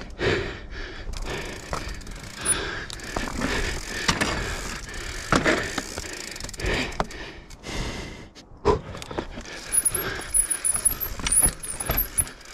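Mountain bike ridden down a rocky, rooty trail: tyres rolling and scrabbling over rock and dirt, with the chain and frame rattling and irregular knocks from the rough hits.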